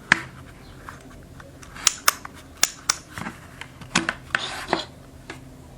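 Hand work on small plastic and wire parts of a power strip: about ten sharp snips and clicks over a few seconds, with a short scrape a little past the four-second mark.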